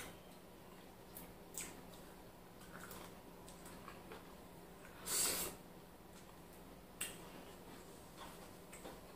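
Person eating semolina and slimy ogbono soup by hand: quiet chewing and mouth sounds with a few small smacks and clicks, and one louder breathy sound about five seconds in, over a faint steady hum.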